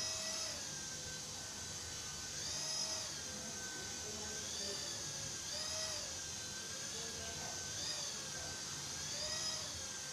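Toy infrared-sensor ball helicopter's tiny electric motor and rotors whining as it hovers. The pitch swells up and drops back every one and a half to two seconds as the sensor throttles the motor up and down.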